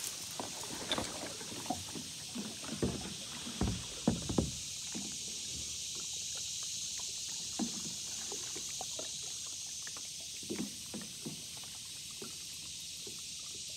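Kayak hull pushing out through tall grass: rustling and scraping of stems with several knocks in the first five seconds, then only a few soft knocks as it glides on open water. A steady high hiss sits underneath.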